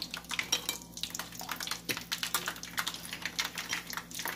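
Pieces of sun-dried pork skin frying in very hot oil, sizzling with a dense, irregular crackle of many small pops.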